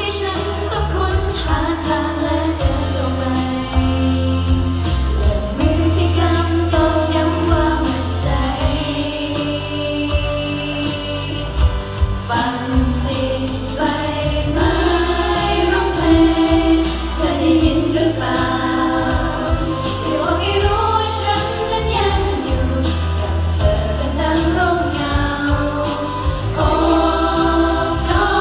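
Female pop idol group singing a song live into handheld microphones, several voices together over a backing track with a steady bass line and beat, heard through the stage PA.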